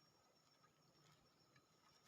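Near silence: faint background with a thin, steady high tone and a few soft clicks.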